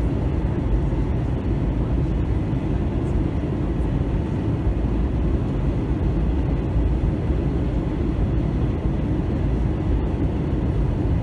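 Airbus A321 cabin noise in flight: a steady low rumble of the engines and rushing air, with a faint steady whine above it.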